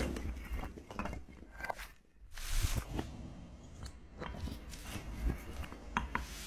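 Scattered footsteps and scuffs on hard ground over a steady low rumble, with a brief hissy rush about two and a half seconds in.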